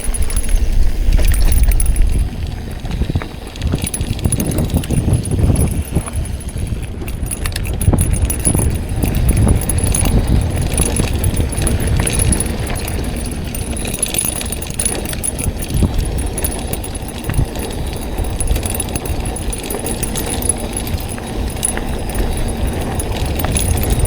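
Mountain bike rolling fast down a dirt trail: tyres on dirt and rocks, the drivetrain chain rattling over the bumps, and wind buffeting the microphone in a low rumble, heaviest in the first couple of seconds.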